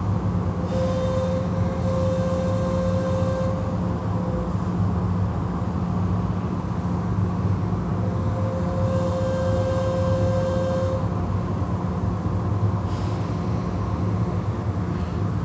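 Tunnel car wash machinery running: a steady low mechanical hum of motors under a hiss of water spray, while the hanging cloth curtains wash the vehicles. A higher whining motor tone rises over it twice, for about three seconds each time.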